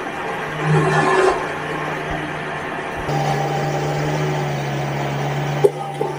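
An engine running steadily at a low hum, swelling briefly about a second in and settling louder about three seconds in, with a sharp click near the end.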